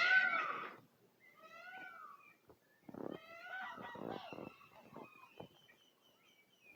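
Animal cries, a few drawn-out calls that rise and fall in pitch, the loudest at the very start; small birds chirp in short high notes through the second half.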